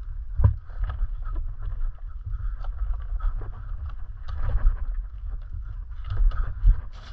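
Mountain bike rolling down a dirt singletrack: tyre noise on dirt and over roots, with short knocks and rattles from the bike as it hits bumps, over a steady low rumble of wind on the microphone.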